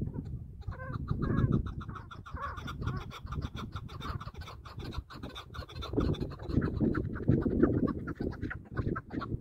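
Chukar partridge calling: a rapid, continuous run of short clucking notes, with a low rumble underneath.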